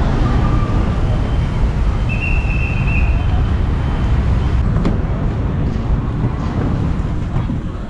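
Busy street traffic: a steady rumble of motorbikes and cars passing, with a brief high-pitched tone about two seconds in.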